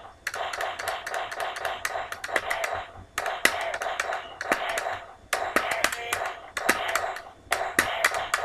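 A homemade beat: sharp taps in a steady rhythm over a repeating buzzing tone, played in bars of about two seconds with short breaks between them.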